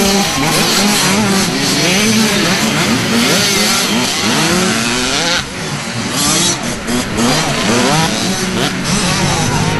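Several small youth dirt bike engines revving as the bikes ride past one after another, their pitch rising and falling over and over as the riders work the throttles.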